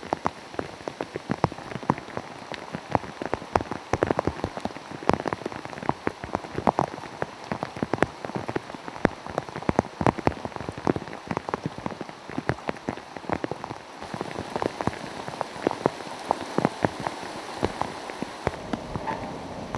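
Hurricane rain falling steadily, with drops hitting a nearby surface as dense, irregular sharp ticks over a constant hiss. The hiss grows a little louder about three-quarters of the way through.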